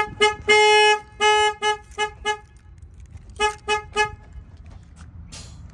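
The truck's horn sounding in pulses as the alarm goes off: a run of short toots and two longer blasts, then three more short toots a few seconds later. A brief hiss comes near the end.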